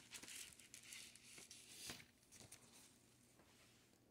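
Faint rustling and a few soft taps of a cardboard LP record jacket being handled, dying down about halfway through.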